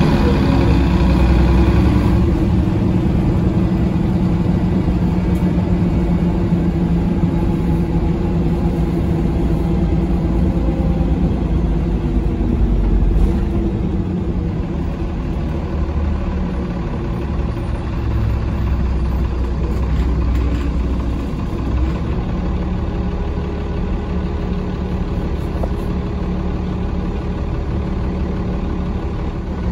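A Mercedes-Benz O405 city bus heard from on board: its engine running under way, the low drone swelling and easing off a few times as the bus pulls and slows.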